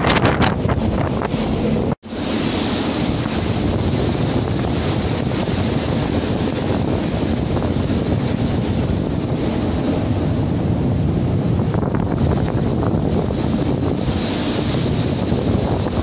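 Storm wind blowing across the microphone over the rush of rough sea breaking around a ship's bow, a steady noise without let-up. The sound cuts out for an instant about two seconds in.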